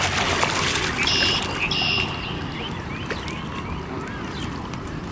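Large fish thrashing at the surface of the river, a dense run of splashes and slaps that eases off after about two seconds into quieter lapping water. Two short, high, steady-pitched calls sound about a second in.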